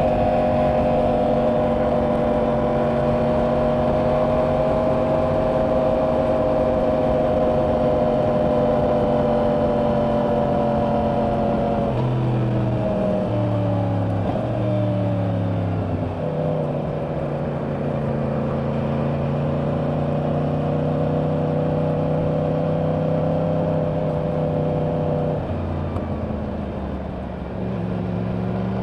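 2024 Yamaha R1's crossplane inline-four on its stock exhaust, running at steady road speed under wind rush. About twelve seconds in, the engine note jumps in steps for a few seconds as gears change. Near the end it falls back and then climbs again.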